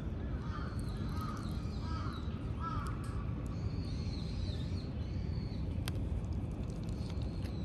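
Birds calling outdoors: a run of short arching calls in the first three seconds, then thinner, higher calls about four to five seconds in, over a steady low rumble of outdoor background noise.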